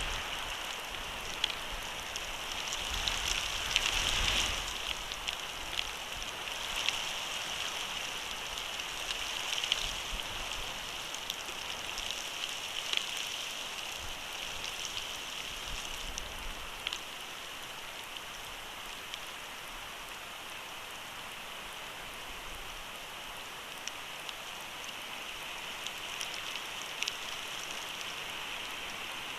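Storm precipitation pattering steadily on the outdoor nest camera and its microphone: an even hiss dotted with scattered sharp ticks from drops or flakes striking. A louder swell with low rumble about four seconds in, like a gust of wind on the microphone.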